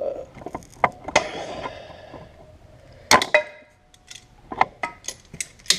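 Metal tools and small engine parts clinking and knocking against each other: a string of sharp clanks, some with a brief metallic ring, the loudest about three seconds in.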